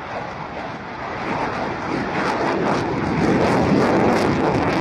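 Fighter jet engine roaring during takeoff and climb-out, swelling in loudness to a peak about four seconds in, with a harsh crackle in the noise.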